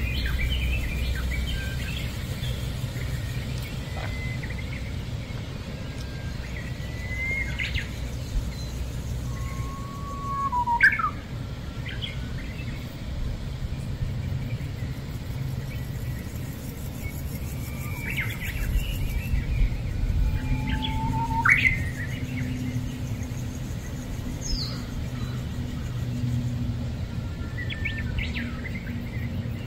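Birds chirping with scattered short calls and whistles, the loudest about a third of the way in and again about two thirds in, over a steady low hum.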